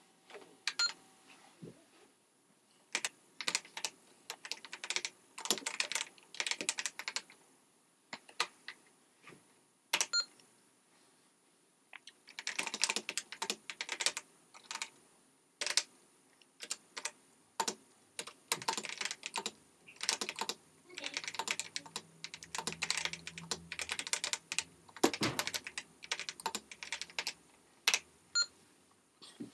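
Typing on an Apple IIe keyboard, slightly sped up: rapid runs of key clicks in bursts separated by short pauses.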